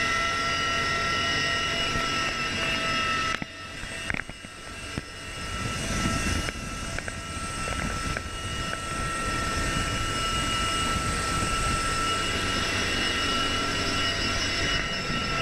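Heavy transport helicopter's engines, rotor and transmission heard from inside the cabin: a steady drone with several high whining tones. It drops away for a second or two about three seconds in, then comes back.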